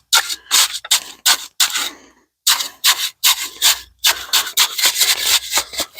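A hand tool scraping and working through wet concrete mix in quick repeated strokes, about three a second, with two short pauses.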